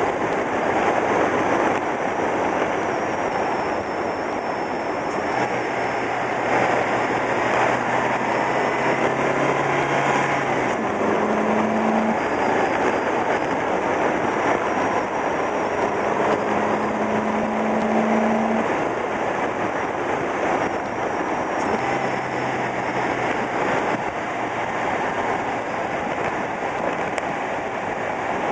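Car driving at speed on an open road: steady tyre and road noise with wind, and an engine hum that holds one note for a few seconds at a time and changes pitch several times.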